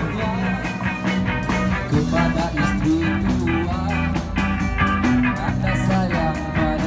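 Rock band music with drums keeping a quick steady beat under guitar and bass.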